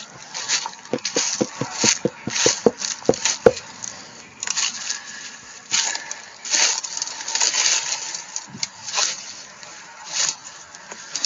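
Twigs and brush snapping and rustling as someone forces a way through dense, thorny undergrowth. A quick run of sharp cracks comes first, then scattered rustling bursts.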